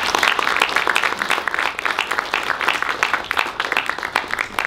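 Audience applauding at the close of a speech: many hands clapping, tapering off near the end.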